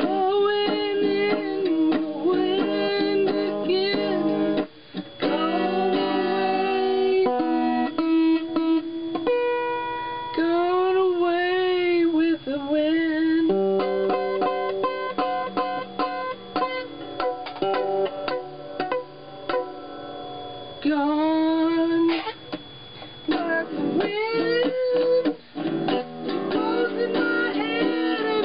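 Small acoustic guitar strummed in loose chords by an untrained player, with a man singing long, wavering notes over it.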